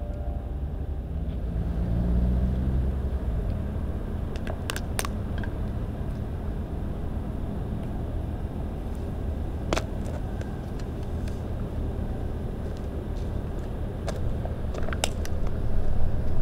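Steady low rumble of distant traffic, with a few sharp clicks scattered through it and a cluster near the end.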